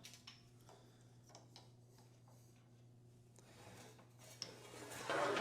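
A hand-operated sheet-metal offset (joggle) roller being worked along the edge of a steel patch panel: scattered light metal clicks, then a louder scraping metal rub starting about five seconds in as the tool presses the offset crease into the panel.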